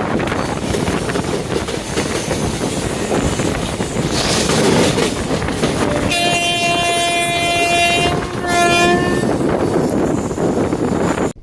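Passenger train running with a steady rolling rumble and wheel clatter. About six seconds in, the locomotive horn sounds one long blast of about two seconds, then a short second blast.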